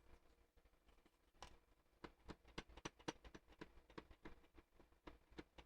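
Faint clicks and taps of hands working a puzzle box, trying to press and shift its lid pieces. A quick run of small clicks, several a second, starts about two seconds in.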